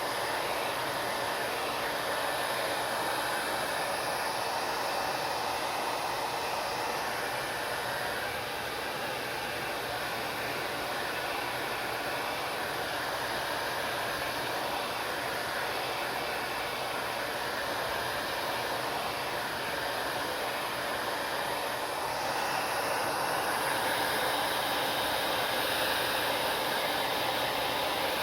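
Hair dryer blowing steadily, a continuous rushing hiss that grows a little louder near the end.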